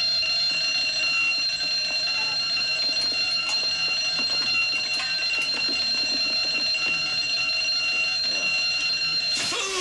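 Ship's fire alarm ringing steadily. Near the end it cuts off and a loud hiss of a fire extinguisher spraying begins.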